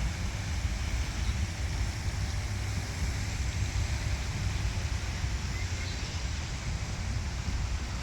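Wind buffeting the microphone: an uneven low rumble over a steady outdoor hiss.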